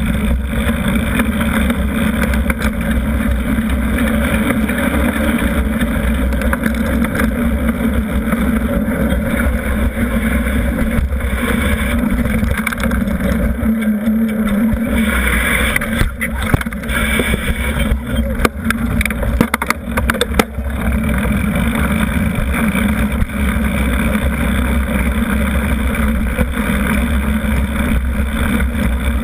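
Riding noise of a Giant Trance mountain bike on pavement, picked up by a camera clamped to its frame: a steady, loud rumble of wind and rolling tyre. A run of sharp rattles and knocks from bumps comes a little past halfway.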